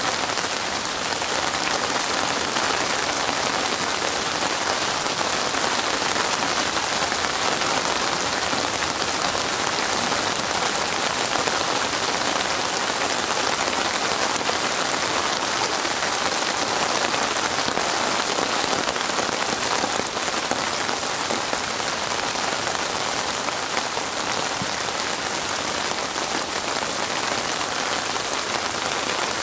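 Steady rain falling: an even, unbroken hiss of many drops that neither builds nor eases.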